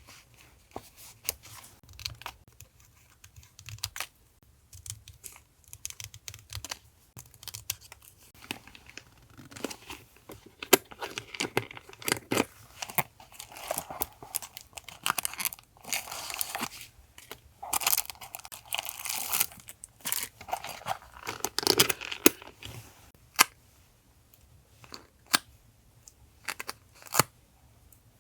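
Paper being torn and rustled by hand, in longer tearing strokes through the middle. Scattered short, sharp clicks come at the start and again near the end.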